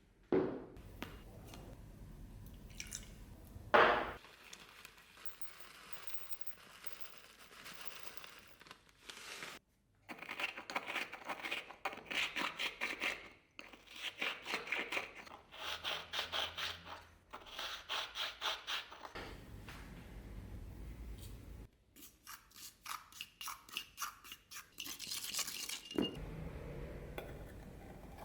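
Rusty steel pchak knife blade being scrubbed by hand in quick back-and-forth strokes, about three a second, in several runs with short pauses between. A single sharp knock about four seconds in.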